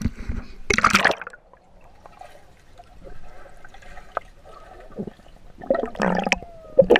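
Pool water splashing as the camera plunges under, followed by muffled underwater gurgling and bubbling, with another loud burst of splashing near the end.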